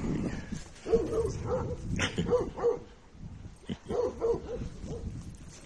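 Young dog making short, pitched vocal noises in quick clusters while play-wrestling and mouthing a person's hand.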